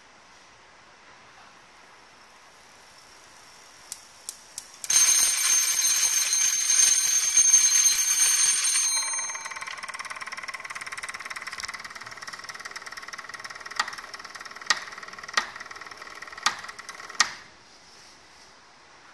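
Electric bell ringer of an antique Braun-system coherer radio receiver ringing loudly for about four seconds, just after three sharp clicks. Once the ringing stops, the receiver gives a quieter electric buzz broken by several sharp clicks, which stops shortly before the end.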